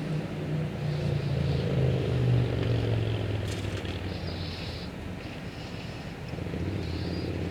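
Low, steady mechanical hum, engine-like, dipping slightly in pitch about two seconds in.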